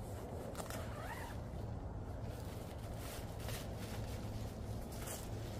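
Rain fly of a Big Agnes Fly Creek HV UL1 tent being opened: fabric rustling and a zipper drawn open, heard as a few short scratchy sounds over a steady low rumble.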